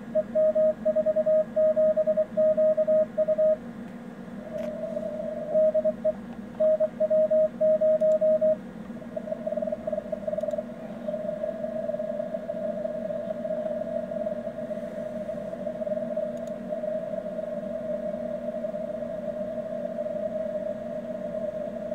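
A CW beacon's Morse code tone of about 650 Hz from an Si5351a 144 MHz beacon, downconverted and received on a Hermes SDR in CW mode. It is keyed in dots and dashes for the first eight or nine seconds, then holds a steady unbroken carrier tone over a low receiver hum.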